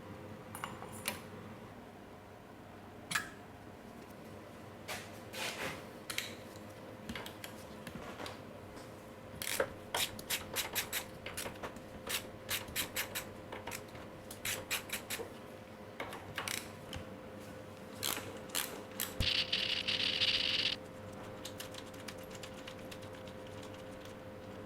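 Hand tools working on the old trike's metal parts during disassembly: scattered clicks and clinks, with quick runs of ticking through the middle. A short hiss lasts about a second and a half near the end.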